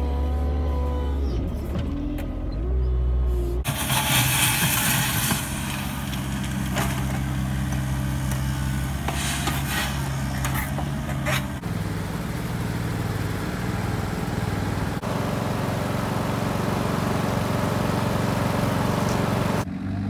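Engines of work machines running in a string of short clips: a wheel loader working a gravel pile heard from its cab, then a Kubota U50-3α mini excavator spreading gravel with a noisy scraping rattle over the engine, then a compact loader. The sound changes abruptly at each cut, about 4 and 12 seconds in.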